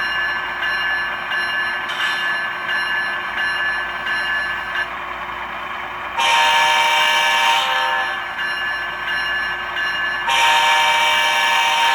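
Digital sound decoder in a model GE ET44 locomotive playing the locomotive bell through the model's speaker, ringing steadily and stopping about five seconds in, followed by two horn blasts of about two seconds each.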